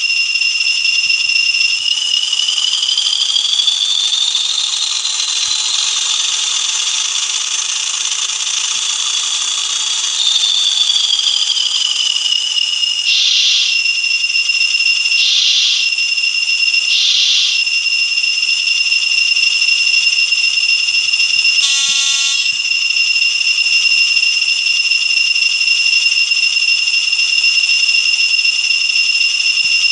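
Recorded Class 40 diesel sound from a Hornby TTS sound decoder in an N gauge Farish model, played through its tiny speaker: a shrill, steady two-tone whistle like the Class 40's turbocharger whistle. The two tones bend together and apart between about two and ten seconds in. A few short bursts follow, then a brief pitched blast about two-thirds of the way through.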